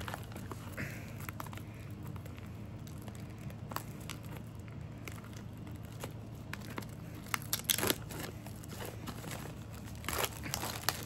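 Sealed card booster box being opened by hand: plastic shrink wrap crinkling and tearing, and cardboard rustling, with scattered small clicks. There are louder crinkles about three-quarters of the way through and again near the end.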